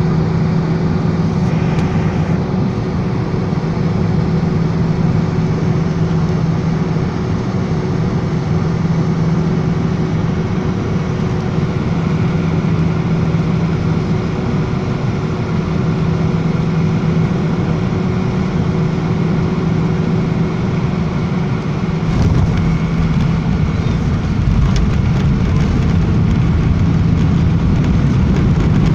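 Cabin noise of a jet airliner on final approach: a steady engine drone with a held tone. About 22 seconds in, the wheels touch down; the tone drops away and a deeper rumble from the runway takes over, growing louder near the end as the aircraft rolls out.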